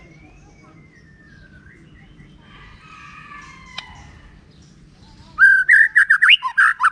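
White-rumped shama singing: a faint falling whistle and soft chattering notes, then, about a second and a half before the end, a loud, rapid run of quick rising and falling whistled notes.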